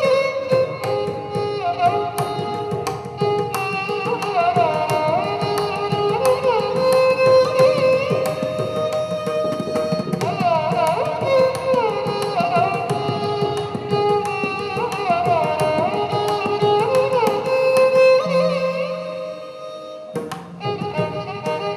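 Solo violin playing a film-song melody in Carnatic style, sliding between notes with ornamented glides, over steady hand-drum accompaniment. The music thins out briefly near the end, then picks up again.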